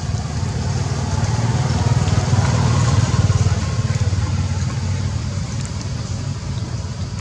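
Low hum of a motor vehicle's engine, swelling to its loudest two to three seconds in and then slowly fading, as of a vehicle passing by.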